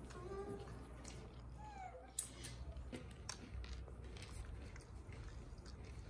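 Faint, short squeaky vocal sounds from a baby, one of them sliding down in pitch, with a few light clicks and taps.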